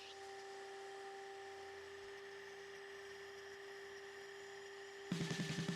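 CNC router spindle running steadily with a faint whine while milling hardwood. Guitar music comes in suddenly near the end.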